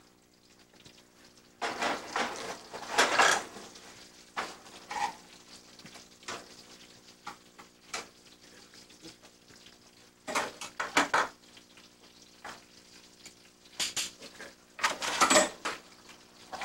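Metal pans and cooking utensils clanking and scraping at a restaurant range in irregular short bursts as chicken breasts are turned over in the frying pan. The loudest clatter comes about two to three seconds in and again near the end.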